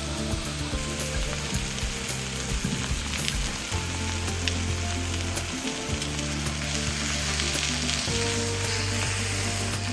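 Food frying, a steady hiss of sizzling, with background music playing over it.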